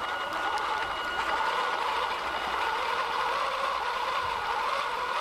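775 brushed DC motors driving a 3D-printed RC tank's helical-gear gearboxes and chain tracks through snow: a steady mechanical whine with a slight waver.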